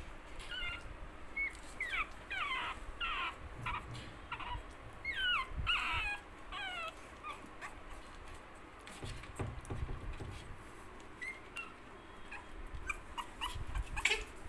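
Young puppies whimpering and yipping in short high calls that fall in pitch, coming thick in the first half and scattered in the second. Low rumbles and a sharp knock near the end come from the scuffling and the handheld phone.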